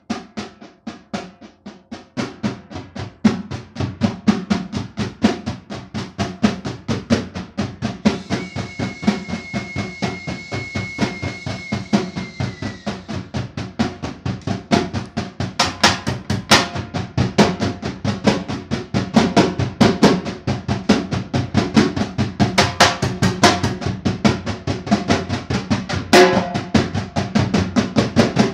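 Fast, even hand drumming on a nağara and a frame drum played together, imitating the rhythm of a running train; the drumming gets louder about two seconds in. About a third of the way through a steady high whistle-like tone sounds over it for several seconds and drops in pitch as it ends.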